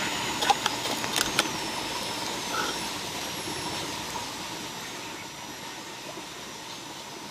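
A wood or charcoal fire crackling and hissing, with a few sharp pops in the first second and a half, then a steadier, slowly fading hiss.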